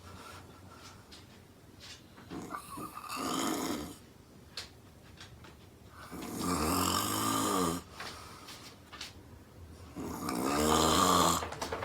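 A woman snoring loudly in her sleep: three long snores about four seconds apart, each lasting one to two seconds, the last the loudest.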